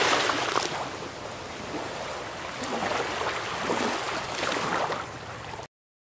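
Small sea waves breaking and washing in, swelling and easing several times, until the sound cuts off abruptly near the end.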